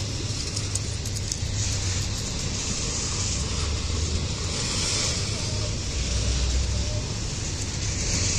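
Norfolk Southern intermodal train's double-stack well cars rolling slowly past at close range: a steady low rumble of steel wheels on rail with a hiss over it and a few faint clicks.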